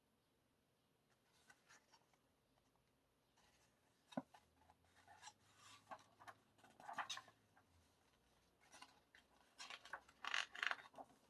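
Faint handling of an album's paper photos and cards: soft rustling, sliding and tapping, with a sharp click about four seconds in and a louder flurry of rustling near the end.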